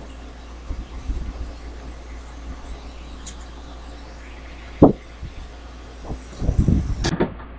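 A cat's fur brushing and bumping against the microphone over a steady low rumble. There is one sharp knock about five seconds in and a run of soft thumps near the end.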